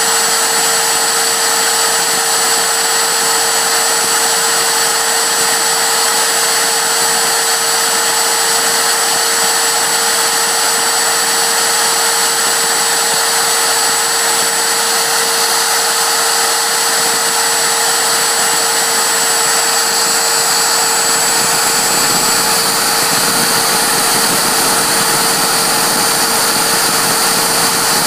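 CNC router spindle running at high speed with a steady whine while a 0.4 mm (0.0157 in) micro drill bit drills holes in plastic. A thin high-pitched tone in the mix stops about four fifths of the way through.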